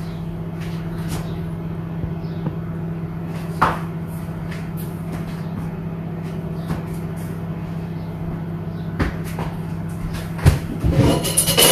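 A steady low hum runs throughout, with a few scattered clicks and knocks of kitchen items being handled and a cluster of louder knocks near the end.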